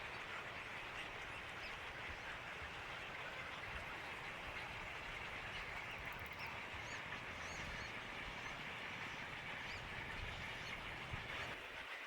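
Birds calling outdoors over a steady hiss and low rumble, with a few short high chirps about halfway through.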